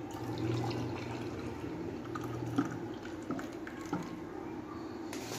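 Lassi poured from a blender jug into a glass, a thick stream splashing as the glass fills. There are two short clicks partway through and a steady low hum behind.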